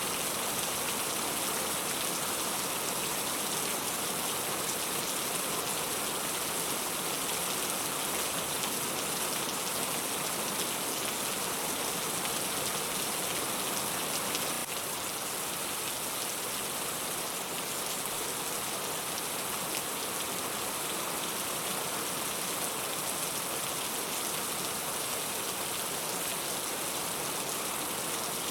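Heavy rain falling steadily, a dense even hiss of drops with no thunder; it drops slightly in loudness about halfway through.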